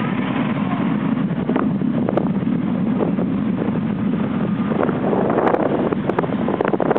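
Motorbike running under a steady rush of wind buffeting the microphone while riding along a wet street, with a few short sharp ticks about five to six seconds in.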